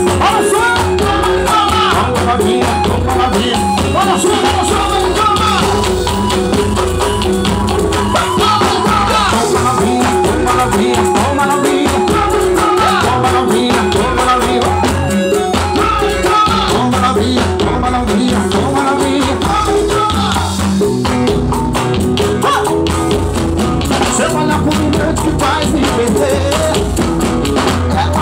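Live band playing a swingueira (Bahian pagode) song: a steady dance beat with electric guitar, keyboard and saxophone under a singer's vocal.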